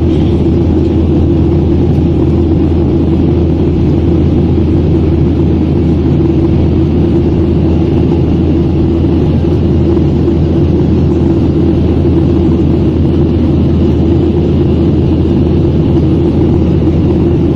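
Jet airliner cabin noise in flight: a loud, steady drone of engines and rushing air, heard from inside the cabin, with a low hum under it.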